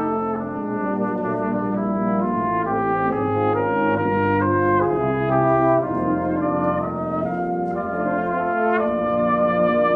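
Geneva Cardinal Professional cornet playing a flowing, legato melody, changing note about every half second. Lower sustained notes sound beneath it as accompaniment.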